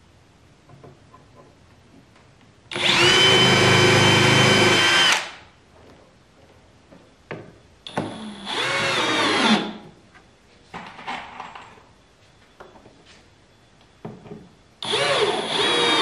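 Cordless drill running in three bursts into a wooden shelf top as the shelf is fastened to its frame: a long run of about two and a half seconds, then a shorter one about eight seconds in and another near the end, each a steady motor whine. Small knocks of handling wood fall between the runs.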